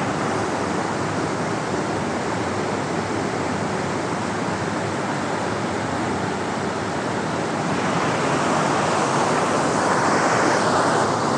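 Close, steady rush of a waterfall: falling water pounding onto rock, getting a little louder after about eight seconds.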